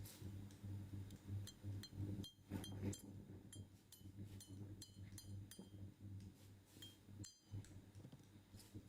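Small metal parts and tools clinking lightly on a workbench: a dozen or more short, ringing clicks at irregular intervals, over a faint steady low hum.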